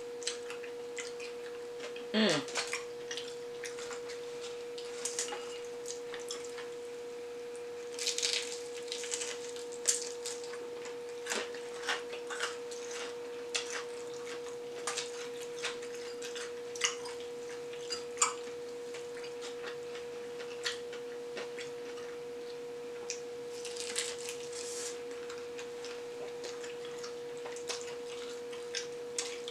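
Popeyes fried chicken being eaten: scattered crunches of the crispy breading and chewing, with a louder run of crunching about eight seconds in. A steady high hum runs underneath.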